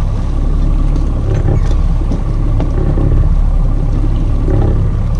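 Boat's outboard motor running at slow trolling speed: a steady low rumble. A few light knocks sound over it.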